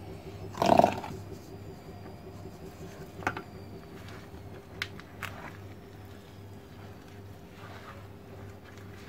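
Hands working flour into a sticky fekkas dough in a wooden bowl: soft rubbing and squishing with a few light knocks against the bowl, over a steady low hum. A brief louder sound comes just under a second in.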